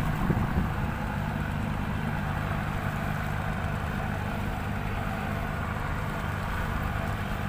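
A boat's engine running steadily at slow speed, a low, even hum heard from on board.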